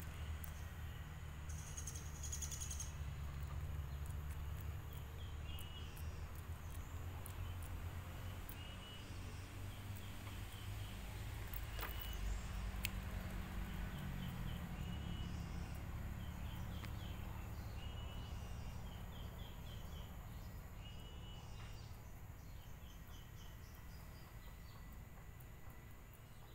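Outdoor ambience of a songbird chirping: short high notes in quick little runs, repeating every second or two, over a steady low rumble.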